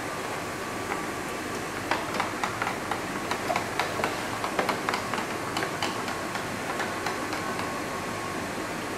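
A hand-held can opener cuts around the rim of a sealed steel food can, making a quick, irregular run of sharp metal clicks and snaps. The clicks begin about two seconds in and thin out after about seven seconds, over a steady room hiss.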